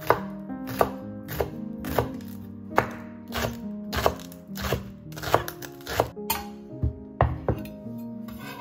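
Chef's knife slicing green onions on a wooden cutting board: about a dozen sharp knocks of the blade on the board, roughly two a second, stopping near the end. Background music plays under it.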